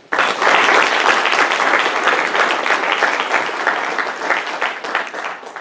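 Audience applauding, many hands clapping; it starts suddenly and dies away toward the end.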